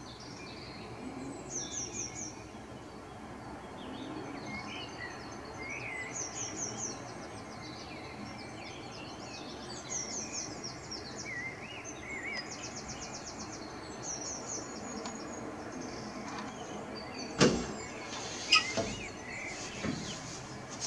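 Songbirds singing outdoors: a fast high trill that repeats every few seconds, with scattered lower chirps, over a steady background hum. Near the end come two sharp knocks about a second apart, the loudest sounds here.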